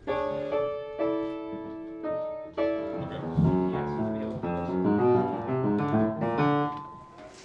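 Upright piano being played: held chords struck about once a second, then a run of quicker notes lower down from about three seconds in, dying away near the end.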